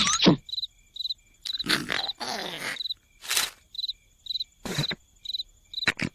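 Cricket chirps, about two a second, between intermittent soft snoring breaths.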